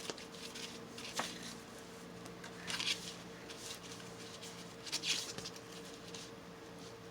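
Paper being handled for a hand-made junk journal: a light tap about a second in, then two short rustles about 3 and 5 seconds in.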